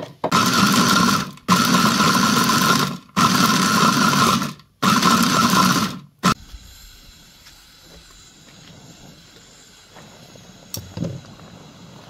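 Electric mini food chopper run in four pulses of about a second and a half each, chopping fresh green walnuts with their husks. A click follows the last pulse, then only low background.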